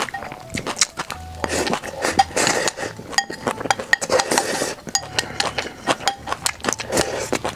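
Wooden chopsticks clicking and scraping against a glass bowl as food is shovelled from it, mixed with close-up chewing and eating sounds.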